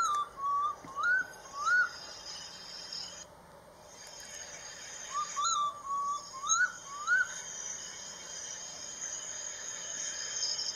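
Oriental bay owl calling: two runs of short whistled notes, most rising in pitch, about four in the first two seconds and five more from about five seconds in. Insects keep up a steady high-pitched hiss underneath.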